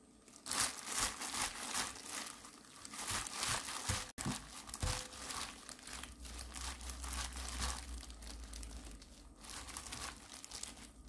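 A hand in a thin plastic glove tossing julienned carrots with seasoning in a glass bowl: the glove crinkles and the wet carrot strands rustle and squish in a continuous run of small crackles, starting about half a second in, with a momentary break about four seconds in.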